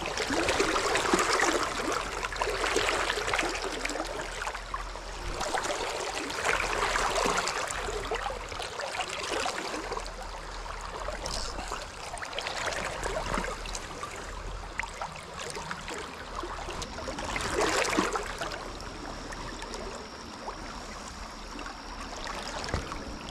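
River current rushing and lapping close to the microphone, with the water's noise swelling louder now and then.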